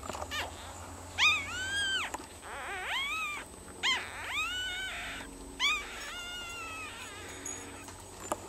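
Newborn Cavalier King Charles Spaniel puppies squealing: a series of about six high-pitched cries, each rising then sliding down, over the first seven seconds.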